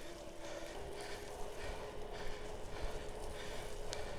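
Mahle X35 e-bike rear hub motor whining at a steady pitch under pedal assist, the pitch stepping up a little under a second in. It runs over tyre and wind noise and the rider's hard, rhythmic breathing.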